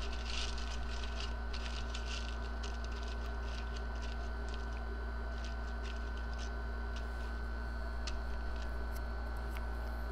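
Aluminium foil crinkling as hands fold and press it into a package, busiest in the first second or so and then in scattered small crackles, over a steady low hum.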